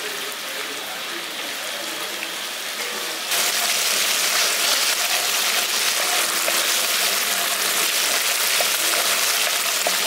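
Boiled onion paste frying in hot oil with nigella seeds, a steady crackling sizzle that gets suddenly louder about three seconds in.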